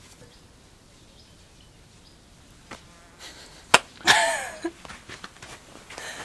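A single sharp hand slap of a high five a little under four seconds in, followed at once by a short, wavering laughing squeal.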